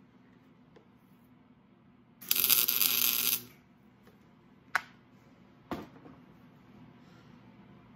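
Electric arc welder laying a tack weld on steel: about a second of loud, even crackle from the arc that then stops. Two sharp clicks follow, a second apart.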